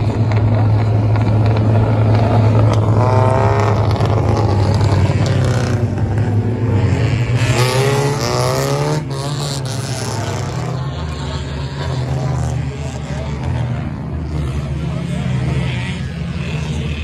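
V6 stock race cars passing on an oval track, their engines running hard in a steady drone, with pitch sweeping up and down as cars go by, most plainly about three seconds in and again around eight seconds. The sound is loudest in the first half and eases somewhat after about ten seconds.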